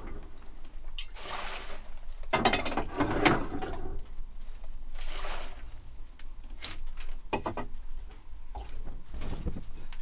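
Clear plastic bag crinkling and rustling as it is handled, in several irregular bursts.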